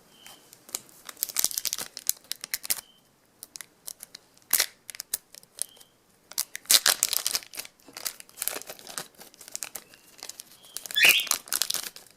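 Trading card packs being torn open by hand, the wrappers crinkling and crackling in several bursts with short pauses between them.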